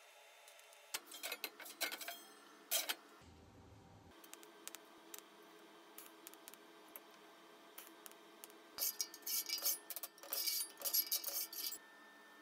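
Light metallic clicks, taps and scrapes of steel parts and tools being handled on a steel welding table. They come in two clusters, the busier one near the end, over a faint steady hum.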